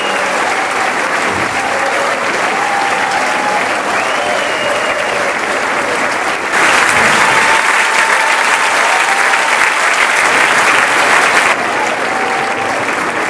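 Large concert audience applauding and cheering, with scattered voices over the clapping; the applause swells suddenly about halfway through and eases back near the end.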